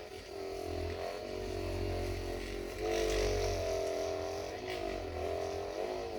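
A small motor running with a slightly wavering pitch, a little louder about three seconds in.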